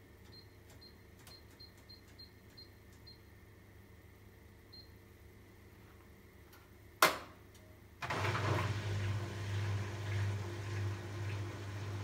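Arçelik 8120 PMG front-loading washing machine being set to rinse: its control panel gives a run of short high beeps as the program dial is turned and one more a little later, then a loud sharp click about seven seconds in. A second later the machine starts running, a low pulsing hum under a steady rushing noise.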